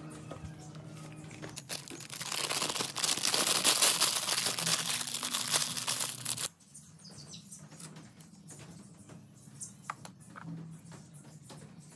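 Plastic packet of breading mix crinkling loudly for a few seconds as the powder is shaken out into a plastic tub, stopping abruptly about six and a half seconds in. After that come softer rustles and light taps as the flour mix is handled.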